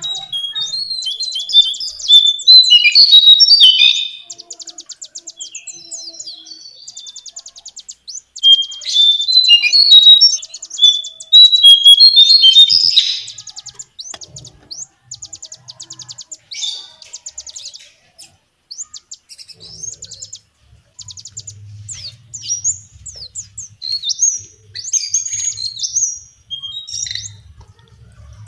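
Lesser shortwing (Brachypteryx leucophrys) singing: fast, high chattering trills mixed with louder, jumbled warbled phrases, loudest in two stretches, one a couple of seconds in and another around the middle.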